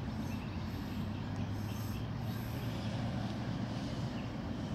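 Road traffic passing: a vehicle's engine gives a steady low rumble, swelling slightly in the middle.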